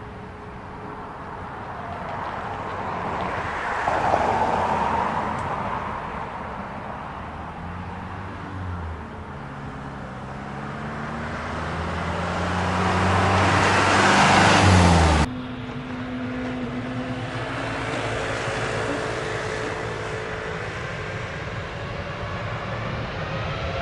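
Airbus A320-family jet airliner turbofan engines running. Several engine tones climb in pitch for several seconds and then cut off abruptly midway, replaced by a steadier engine sound.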